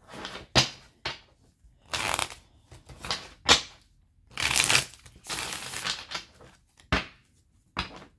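A deck of tarot cards being shuffled by hand: a run of short, irregular papery rustling bursts and sharp card snaps, with brief pauses between.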